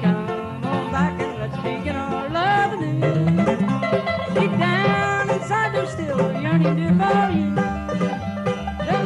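Bluegrass band playing, with banjo, guitar, mandolin and bass together, and a melody line that slides between notes in the middle.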